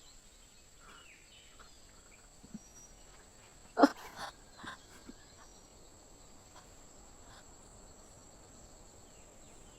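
Faint, steady chirring of crickets, with one brief, sharp, louder sound a little under four seconds in.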